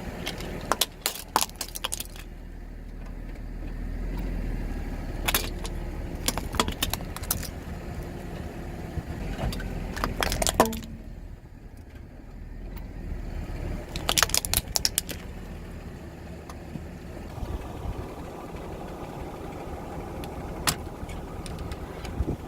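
A car's engine running at low speed while its tyres roll over and crush objects: several bursts of crackling, snapping and popping over the low engine hum.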